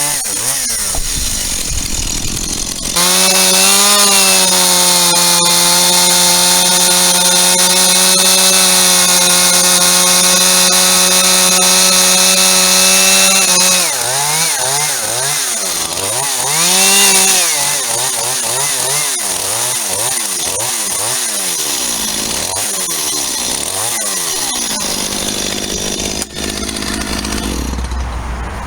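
Chainsaw held at a steady high pitch for about ten seconds from about three seconds in, as when cutting through wood. It is then revved up and down over and over, and near the end it drops to a lower steady note.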